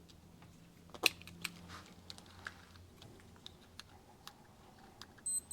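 Scattered light clicks and taps of small metal engine parts being handled, with one sharper knock about a second in. A brief high tone sounds near the end.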